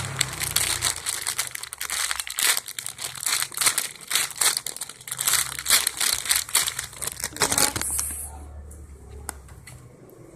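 Plastic wrapping crinkling as it is handled, a dense run of rapid crackles that dies down about eight seconds in.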